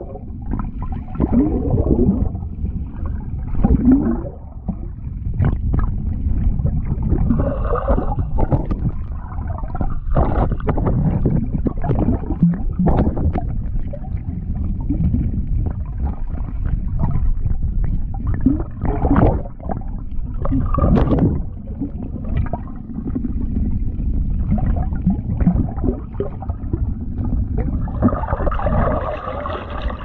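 Water heard from underwater as ducks dabble and paddle at the surface overhead: continuous dull gurgling and sloshing with frequent short splashes, and air bubbles churning.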